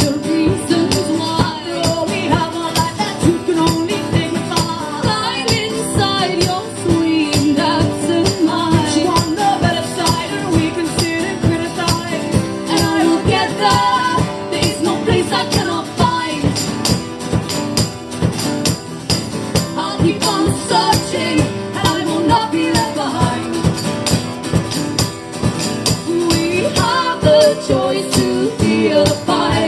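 Live band playing an instrumental break between sung verses, driven by a steady, busy percussive beat.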